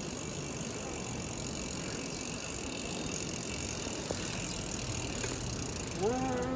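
Riding noise from a moving bicycle, heard through the rider's phone: steady road and wind noise with light rattling. Near the end comes a short pitched tone with a few overtones.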